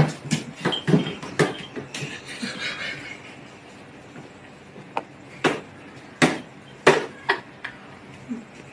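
Irregular sharp taps and knocks on the top of a refrigerator, where a man's hand reaches toward a cat. There is a quick cluster in the first three seconds, then single knocks about half a second to a second apart.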